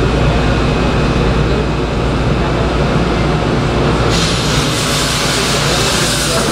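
Shonan Monorail 5000 series car standing still with a steady low hum from its equipment; about four seconds in, a loud steady hiss begins.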